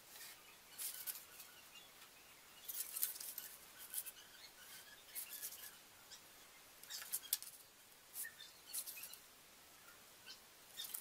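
Marker pen making short scratching marks on cardboard, with a steel ruler being shifted across the board. The sounds come as faint, brief scratches on and off throughout.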